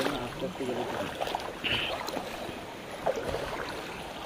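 Shallow river water splashing and sloshing in irregular strokes as people wade through it, with faint voices in the background.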